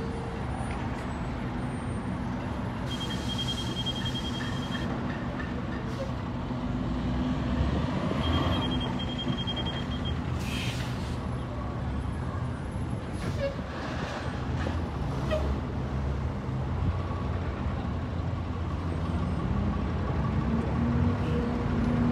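City transit buses' diesel engines running and pulling away through an intersection, with traffic noise. Air brakes hiss twice, and a high beeping sounds twice.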